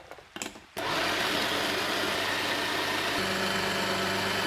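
A few plastic clicks as the lid is pressed into place. About a second in, a small push-top electric food chopper's motor starts and runs steadily, its blade chopping bananas into a paste.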